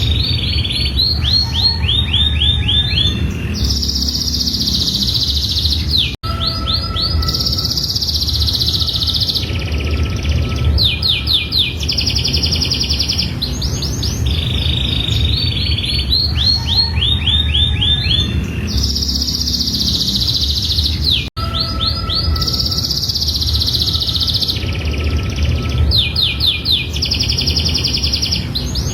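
Domestic canary singing a long, continuous song of rapid high trills and rolls in changing phrases. The same stretch of song repeats about every fifteen seconds, with a brief drop-out at each join, over a steady low rumble.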